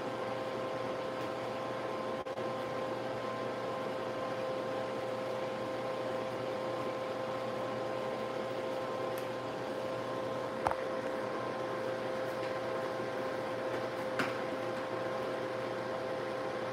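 Steady machine hum holding a few even tones, with two short clicks about ten and fourteen seconds in.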